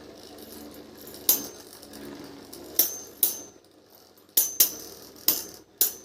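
Two metal Beyblade spinning tops (Wing Pegasus and Twisted Tempo) battling in a stadium: a run of about seven sharp metallic clinks as they collide, some ringing briefly, over the faint whir of the spinning tops in the first couple of seconds.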